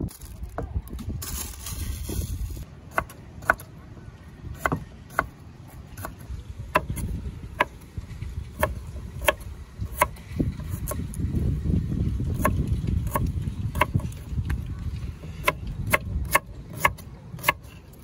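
Kitchen knife slicing purple sweet potato on a wooden board, each cut ending in a sharp knock of the blade on the wood, about one to two a second starting a few seconds in, over a low rumble.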